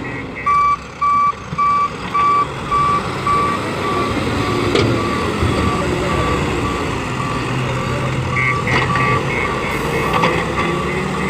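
Heavy construction vehicle's reversing alarm beeping about twice a second over a running diesel engine, loud at first and then fainter. A second, higher and quicker reversing beep joins in after about eight seconds.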